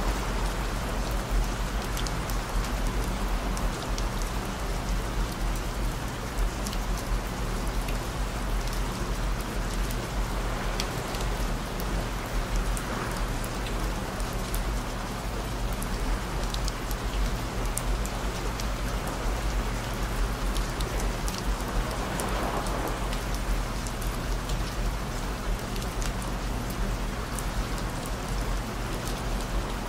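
Steady rain with scattered drop ticks, layered over low steady hum tones: fixed frequency tones of about 55, 117 and 221 Hz.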